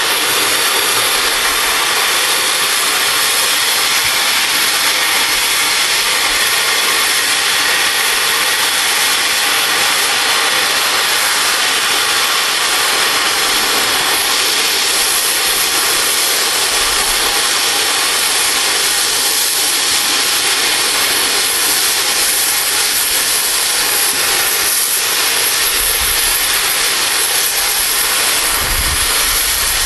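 Flame-cutting torch hissing steadily as it cuts through steel railroad rail.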